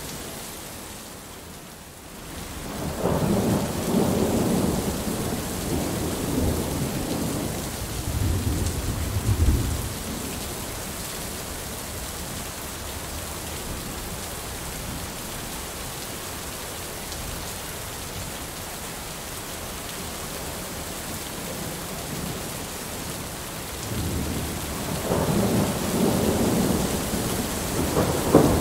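Heavy rain falling steadily through a thunderstorm. A long rumble of thunder rolls in about three seconds in and dies away by about ten seconds; another rumble builds near the end and ends in a sharp crack.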